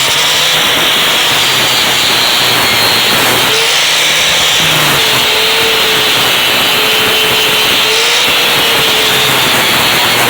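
Corded Makita angle grinder with a 40-grit Diablo disc grinding a stair surface under load: a continuous loud, harsh grinding noise with the motor's whine wavering slightly as the pressure changes.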